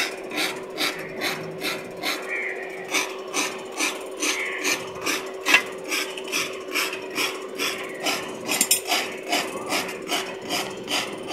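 Hand-cranked forge blower, driven by a bicycle wheel and string belt, spinning with a steady whine under a rhythmic rasping rub about three times a second, feeding air to a charcoal forge fire.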